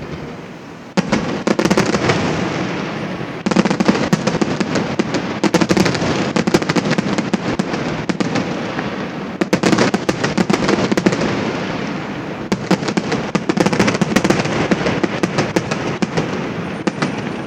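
Aerial fireworks going off: dense, rapid popping and crackling that starts about a second in and swells again in several fresh waves.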